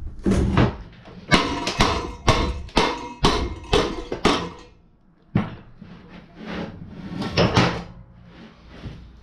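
Hammer striking the metal of a small Briggs & Stratton engine on a steel bench. It lands a run of sharp blows, about two a second, then pauses briefly, and a few lighter knocks follow.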